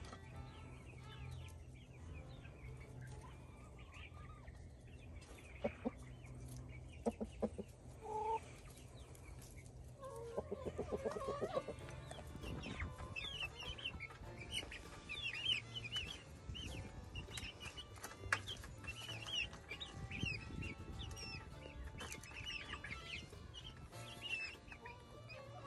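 Hens clucking and calling while they feed. There are a few sharp taps about six to eight seconds in, and many short high calls in the second half.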